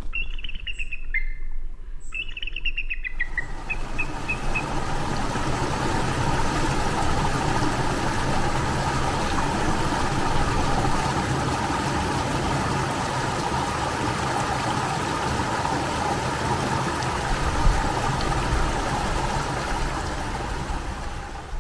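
A bird's short, falling chirping calls in the first three seconds, then a small mountain creek cascading over rocks, a steady rush of water.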